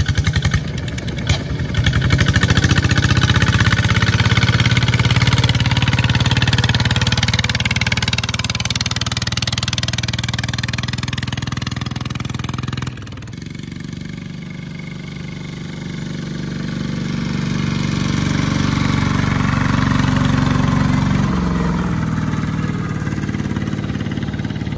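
Single-cylinder diesel engines of two-wheel walking tractors running steadily under load as they haul trailers of rice sacks. About halfway through the sound cuts abruptly to a second tractor, quieter at first and then growing louder as it comes closer.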